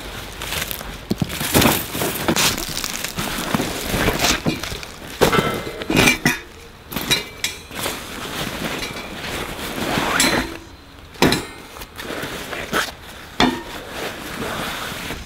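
Small wire grill rack and hacksaw clinking and knocking as camping gear is handled and packed into a fabric backpack, with rustling of the bag between irregular metal clinks.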